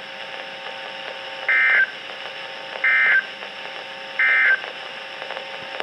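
Emergency Alert System end-of-message (EOM) signal: three identical short bursts of SAME digital data tones, about a second and a half apart, over a steady radio hiss. It marks the end of the weather radio warning broadcast.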